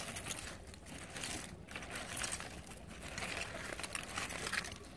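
A gloved hand scratching and scraping through loose soil, dead leaves and roots, with irregular small crunches and clicks.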